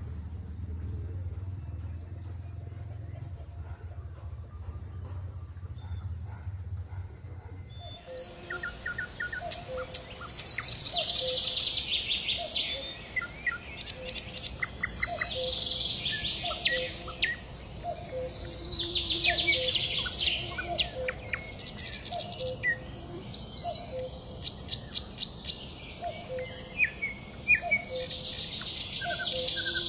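Birds singing and chirping, with rapid high trills that swell every few seconds and a lower short note repeating about once a second. For the first eight seconds or so there is only a low hum and a faint steady high tone, before the birdsong begins.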